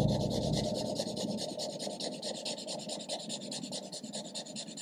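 Marker nib rubbing across paper in quick, even back-and-forth shading strokes.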